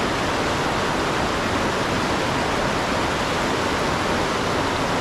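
Steady rush of a fast-flowing river, running high after recent rain.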